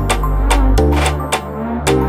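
Background music with a drum beat over held bass notes that change about once a second.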